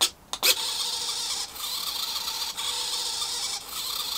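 A couple of sharp clicks, then a small RC servo whirring steadily as it drives back and forth, with a brief drop about once a second as it reverses.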